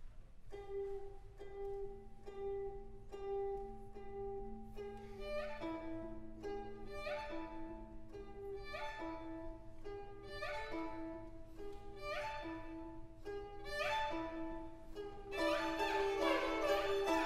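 String orchestra and zheng playing: quiet repeated notes over a held lower note, then a run of quick upward sweeps, each settling on a sustained note, recurring about once a second. About fifteen seconds in the full string section comes in louder and busier.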